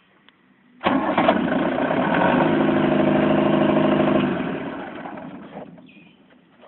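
Diesel generator engine turned over on the key start: it comes in suddenly about a second in, runs loud and steady for about three seconds, then winds down and dies away over the next two seconds.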